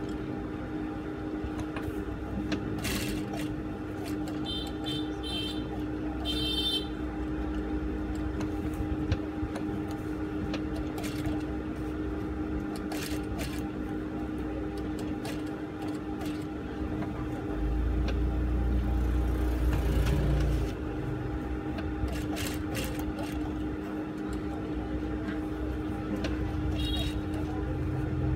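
JUKI industrial sewing machine running: a steady motor hum with stretches of stitching and scattered clicks. A louder, deeper run comes about two-thirds of the way through.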